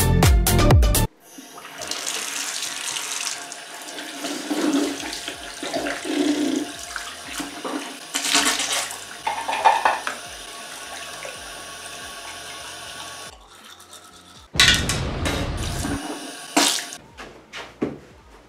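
Water running from a bathroom sink tap into the basin, with splashing as a face is held under the stream. Short loud bursts of music come at the very start and again about two-thirds of the way through.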